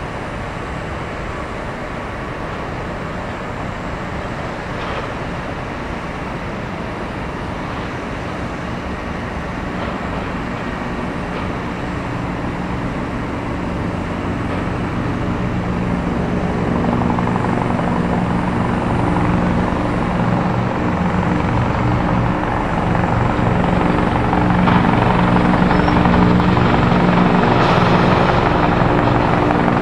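Steady heavy engine noise with a low hum, growing louder through the second half.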